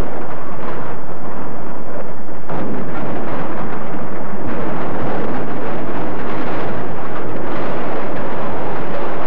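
A truck tumbling down a rocky slope: a loud, continuous crashing noise of metal and loose rock. It grows louder about two and a half seconds in and again around halfway through.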